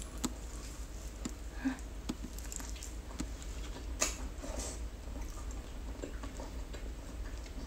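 Close-up mouth sounds of chewing a bite of roast turkey leg meat: soft wet smacks and small clicks, with a sharper click about four seconds in.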